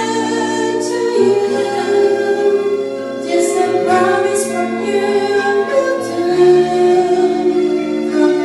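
A woman singing into a microphone over instrumental accompaniment with a bass line, holding long notes.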